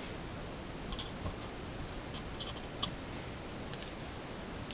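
Light scratches and small clicks of fingers and a knife blade working at the packing tape on a cardboard box, a few faint ones over a steady hiss.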